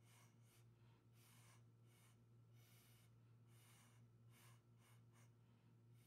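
Near silence: a faint steady low hum with about ten soft, irregular puffs of breath-like hiss.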